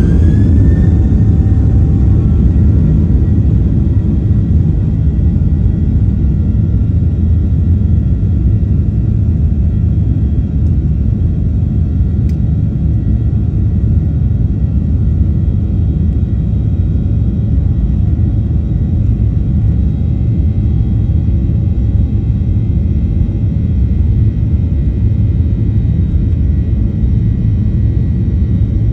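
Airplane engines at takeoff power: a loud, steady rumble with a whine that rises in the first second and then holds steady.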